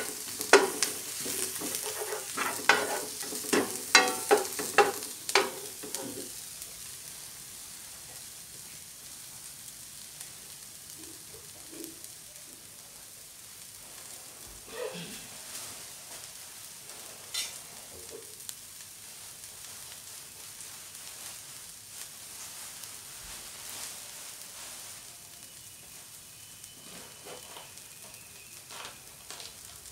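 A wooden spatula stirring and scraping chopped shallots, garlic, green chillies and spring onion around a nonstick frying pan, knocking against the pan repeatedly, for about the first six seconds. After that the aromatics sizzle steadily in the hot oil, with only a few scattered clicks.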